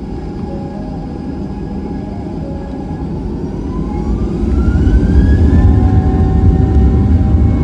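An airliner's CFM56 turbofan engines spool up to takeoff thrust for the takeoff roll, heard from inside the cabin. Over a steady rumble, a whine rises in pitch from about three seconds in, and the low rumble grows much louder about a second and a half later.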